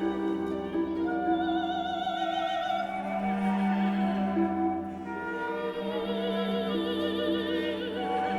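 Background music: operatic classical music, a singer with vibrato over orchestra and strings.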